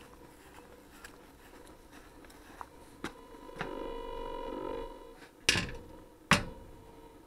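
Handling noise on a quadcopter's onboard camera as it is carried and set down. A faint steady hum, a buzzing tone for about a second and a half in the middle, then two sharp knocks less than a second apart.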